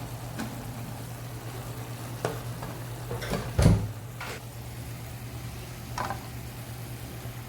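Chicken curry gravy simmering in a pan with a steady low hiss while a utensil stirs and scrapes in it. There are a few knocks against the pan, the loudest about three and a half seconds in.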